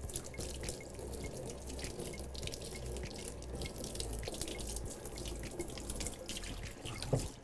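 Water from a kitchen-style sink hand sprayer running steadily and splashing onto a dog's wet coat over a steel sink, with one short knock near the end.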